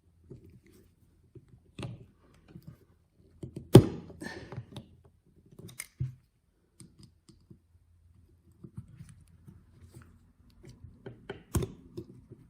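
Scattered clicks and light metal taps of a hand tool working a small part out of a Johnson outboard carburetor body. A sharp click comes a little under four seconds in and another near the end.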